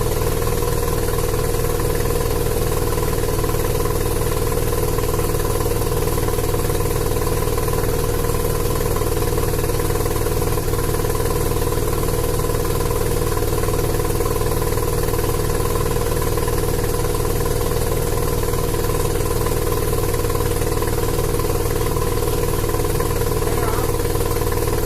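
Mazda RX-7 SA22C's 13B two-rotor rotary engine idling steadily through the stock exhaust, with no revving.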